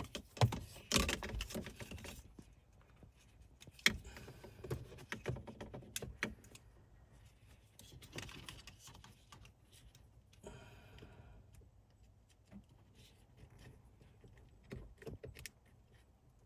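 Small plastic wiring connectors being handled and squeezed at the CAN-C STAR connector block, with scattered clicks and rustling of wires. Busiest and loudest in the first few seconds, then sparser and quieter clicks.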